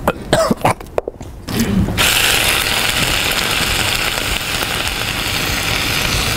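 A small electric motor appliance starts abruptly about two seconds in and runs steadily with a loud whir. It is preceded by a few short clicks and crunches.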